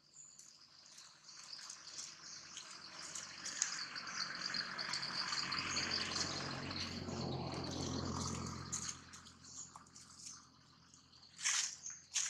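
Outdoor insect chorus: a steady high chirring runs throughout. A broad rushing noise swells up through the middle and fades out, and a short sharp sound stands out near the end.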